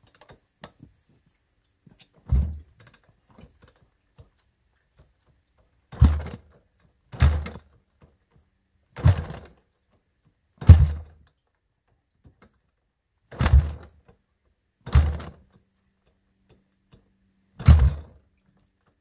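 Kick-starting a 1985 Honda ATC 200X's single-cylinder four-stroke engine at half choke: about eight kicks, one to three seconds apart, each a low thump as the engine turns over. It doesn't fire, since it hasn't run in a long time.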